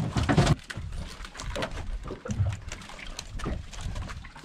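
Small open fishing boat at sea: a low rumble of wind and water against the hull, with scattered clicks and knocks throughout.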